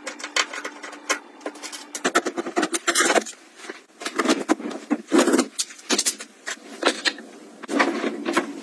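Close-up handling noises from cleaning kitchen appliances: a quick string of clicks, clacks and rubbing as a metal range hood grease filter is unclipped and handled, a dishwasher is loaded and a built-in oven door is opened.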